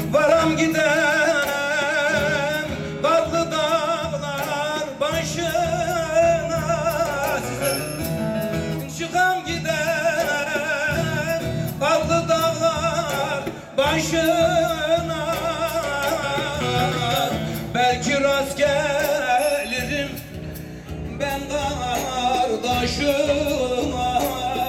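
Live Turkish folk music: a man sings long, wavering, ornamented notes into a microphone over bağlama (long-necked saz) accompaniment.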